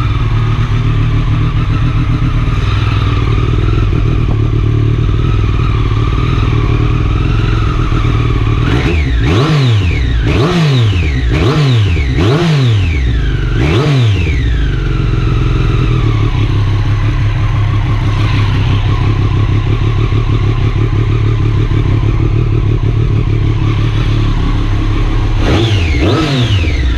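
Triumph Street Triple RS 765 cc three-cylinder engine idling through a new Arrow exhaust. About nine seconds in there is a run of about five quick throttle blips, each revving up and falling back to idle, and two more blips come near the end.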